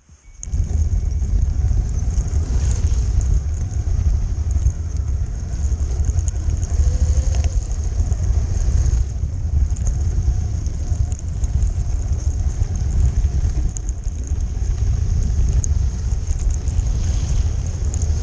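1/18 scale model locomotive running, heard from a camera riding on the train: a steady low rumble of motor, gearing and wheels on the rails, with a constant high whine over it. It starts about half a second in.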